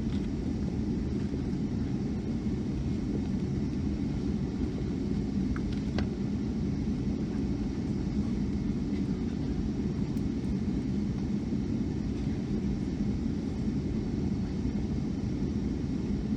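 Steady low rumble inside the cabin of a Boeing 757-200 as it taxis on low engine power, with the air-conditioning running. There is one faint click about six seconds in.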